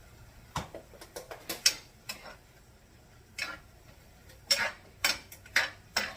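A utensil stirring broccoli in a pan, clinking and knocking against the pan in short irregular strokes, with several close together near the end.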